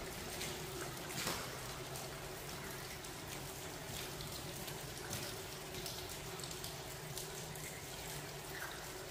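Water trickling and dripping in a wet, flooded railway tunnel: a steady run of water with scattered faint drips.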